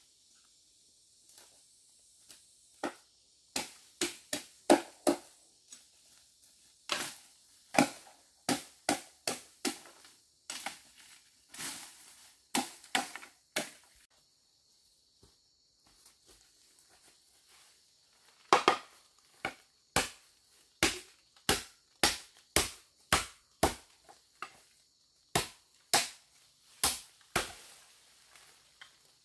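Repeated sharp strikes of a hand tool on bamboo, in irregular runs with short pauses, settling into an even rhythm of about two strikes a second in the second half.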